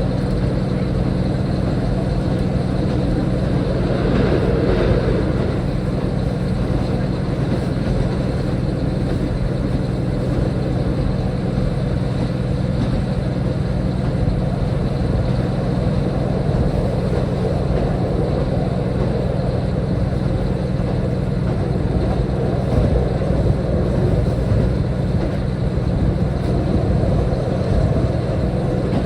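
Diesel railcar running steadily, a constant low engine drone with rumbling, and a brief louder patch about four seconds in.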